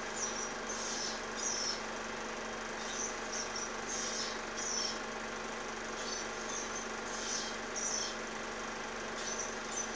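Ospreys calling at the nest: short, high-pitched squeaky chirps, repeated in clusters about twice a second with brief pauses between runs. They sit over the steady hiss and low hum of an old 16mm film soundtrack.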